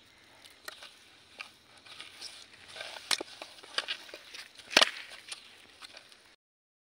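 Hands kneading wet finger-millet (ragi) dough in a steel pot: soft squelching with scattered sharp clicks and knocks, the loudest a little after three seconds and nearly five seconds in. The sound cuts off suddenly near the end.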